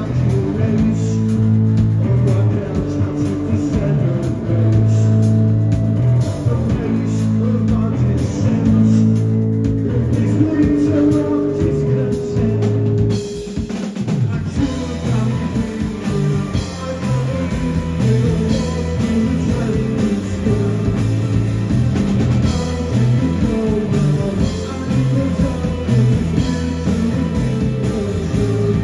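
Live rock band playing: electric guitars, bass guitar and drum kit, with a male lead singer singing over them. The arrangement shifts about halfway through.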